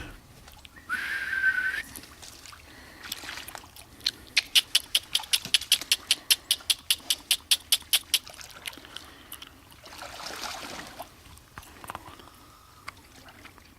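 A dog whines once, briefly and high, about a second in. A few seconds later comes a fast, even run of sharp clicks, about five a second, lasting some four seconds.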